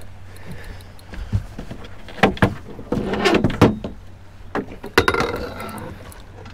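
Several knocks and clunks of a landing net and gear against a fiberglass boat deck as the net is picked up and handled, over a steady low hum.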